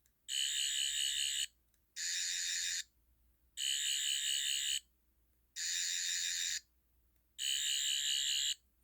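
Toy Doctor Who sonic screwdriver, the 11th Doctor's model, sounding its electronic buzzing warble in five separate bursts of about a second each, with short pauses between them. The toy has two distinct sound effects.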